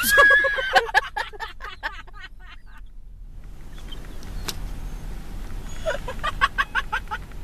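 People laughing: a high squealing laugh, then quick, breathy giggles that fade after about two seconds, with a low road rumble beneath. The giggling picks up again near the end.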